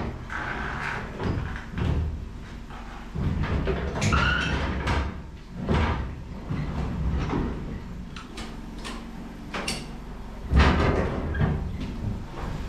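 Irregular metal clunks, knocks and scrapes from a stripped 1980 Chevy C10 cab as it is shifted and worked loose while hanging from a shop crane, with a heavier bang about ten seconds in.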